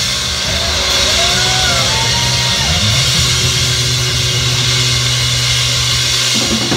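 Live band music with the drums dropped out: a held low bass note rings under a steady high hiss, with a few sliding pitched notes partway through. The drums come back in at the very end.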